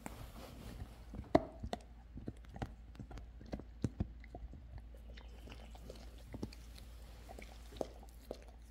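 Yellow Labrador retriever chewing a red rubber chew toy: irregular clicks and knocks of teeth on rubber, busiest in the first four seconds, with the loudest about a second and a half in.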